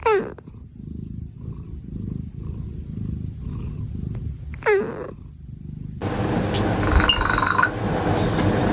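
Sleeping cat snoring in low rumbling breaths, with two short squeaks falling steeply in pitch, one at the start and one about five seconds in. About six seconds in, a louder, hissier sound takes over.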